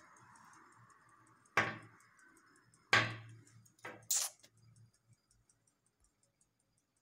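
A few sharp knocks and clicks, four in about three seconds, the loudest about three seconds in, over a faint steady hum that stops about two seconds in. A faint, fast, high ticking goes on underneath.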